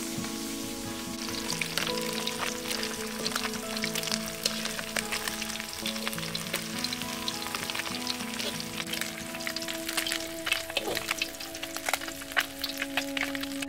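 Small whole river fish frying in hot oil in a wok: a steady sizzle dense with crackles and pops, getting busier in the second half. Metal tongs clink against the wok and strainer as the fish are turned and lifted out.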